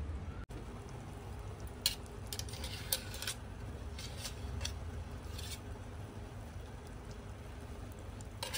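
Sugar syrup bubbling in an aluminium kadhai while lumps of wet cashew paste are dropped in and pushed about with a wooden spatula, giving a handful of short scrapes and squishes over a steady low hum.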